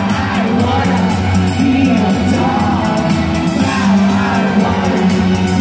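Live rock band playing with singing, electric guitars and a steady drum beat, heard from within the audience with some crowd whoops.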